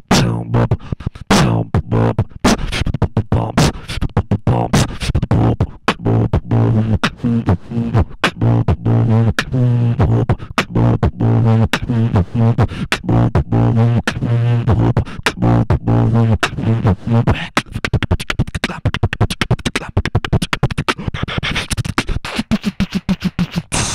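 Beatboxing into a handheld microphone: rapid vocal kick and snare hits with a steady low bass tone under the beat. About two-thirds of the way through the bass tone drops out, leaving quicker percussive clicks.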